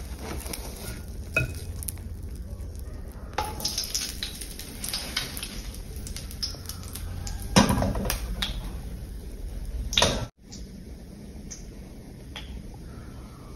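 Kitchen clatter: scattered clinks and knocks of dishes and utensils over a steady low hum, the loudest knock about seven and a half seconds in. The sound cuts off abruptly after about ten seconds and a quieter steady background follows.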